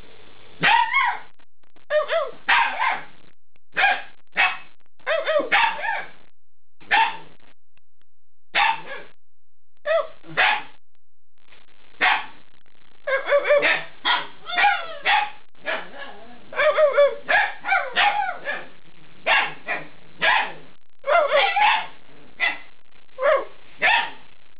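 Eight-week-old Alaskan Malamute puppies making short pitched barks and yips with bending pitch, one after another. About halfway through, several calls overlap in a busy run.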